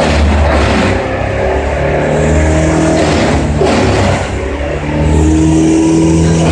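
An engine running hard, its speed dropping and picking up again a few times. It is the machinery of tree-cutting work.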